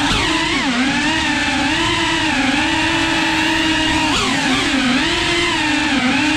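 Small FPV drone's electric motors and propellers whining steadily, the pitch wavering with the throttle and dropping sharply twice, about a second in and about four seconds in, before climbing back.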